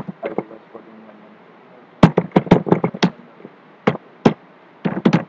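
Computer keyboard typing: a fast run of key clicks about two seconds in, then a few scattered keystrokes near the end.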